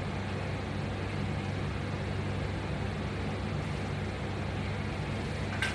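A steady low mechanical hum under an even rushing noise, like a motor or fan running, with one sharp click just before the end.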